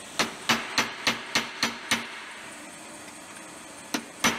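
Hammer tapping on a sheet-aluminium cone with short, ringing metallic blows. There are about three blows a second for roughly two seconds, then a pause, then two more near the end.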